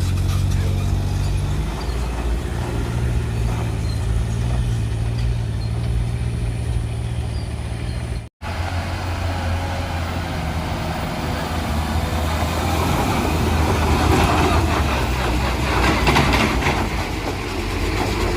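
Heavy truck diesel engine running with a steady low note on a steep climb. The sound drops out for a split second about eight seconds in, and the engine noise grows rougher and noisier later on.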